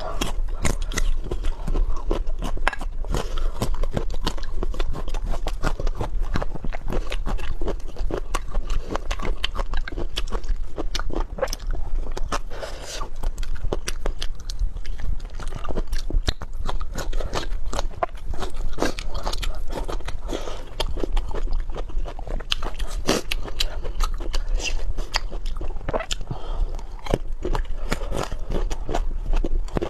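A person chewing and biting food close to the microphone: a dense, irregular run of crunchy clicks and smacks.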